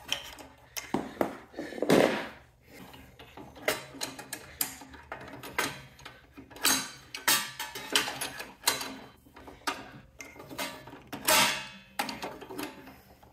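Steel spark plug socket and extension clinking, knocking and rattling against metal in irregular bursts as the socket is wiggled off a freshly fitted spark plug on a small snowblower engine.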